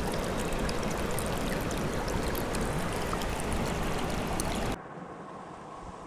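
Steady rush of a creek's fast white water. About five seconds in it cuts off abruptly to a much quieter, muffled wash, as heard from a camera held at the waterline.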